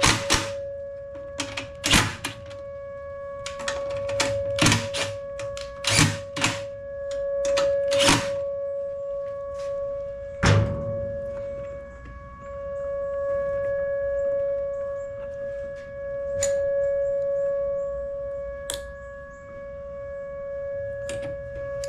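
Outdoor tornado warning siren sounding one steady tone, swelling and fading slowly as it turns, in a scheduled noon test. Over it come sharp knocks of tools being handled on a metal workbench, about eight in the first half, then a few lighter clicks.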